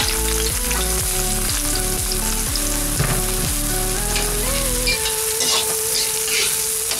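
Chopped spring onion and onion sizzling as they fry in oil in an aluminium wok, stirred and scraped with a metal spatula, with background music underneath.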